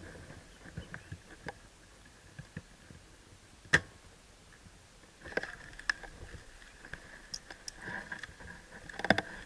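Scattered clicks and rustling, with one sharp crack nearly four seconds in, over a faint steady high tone.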